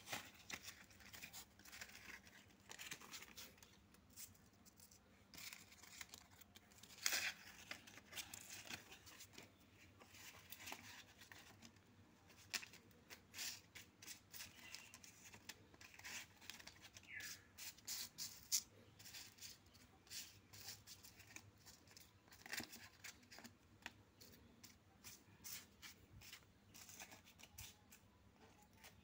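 Paper recharge vouchers being spread and shuffled by hand across a floor: faint, scattered rustles, slides and light flicks of card on card and on the floor. A few flicks stand out as louder, about seven and eighteen seconds in.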